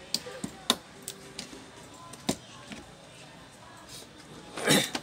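Light clicks and knocks of a circuit board and its cables being handled and set onto a TV's sheet-metal chassis, a few separate taps, then a louder, longer noisy burst near the end.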